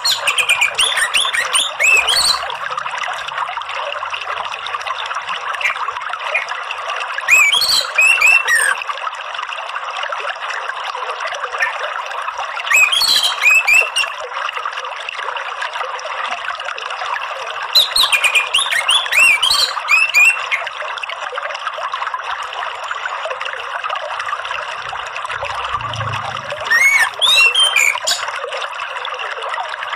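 Running water trickling steadily, with an orange-headed thrush singing short, varied bursts of quick chirping notes about every five seconds.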